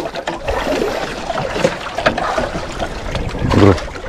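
Water sloshing and trickling around a small fishing boat, with scattered knocks, and one short louder pitched sound about three and a half seconds in.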